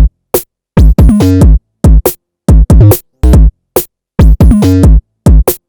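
Electronic intro music: drum-machine beats and synthesizer stabs in short, loud, rhythmic bursts separated by silent gaps.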